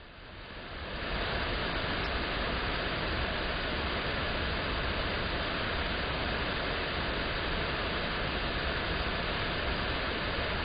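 A steady, even rushing noise that fades in over about the first second and then holds, with no distinct sounds in it.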